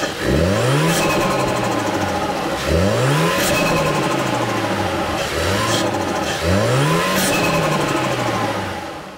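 The 2020 Mazda CX-9's 2.5-litre turbocharged engine, with a newly fitted turbocharger, is revved three times. Each time the pitch rises quickly and then falls back to idle over a couple of seconds. The sound fades out near the end.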